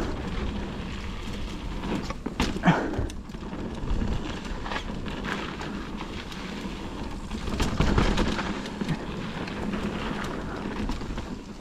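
Mountain bike riding down a dirt trail: steady wind rush on the microphone and tyre rumble, with a few short knocks and rattles from the bike going over bumps.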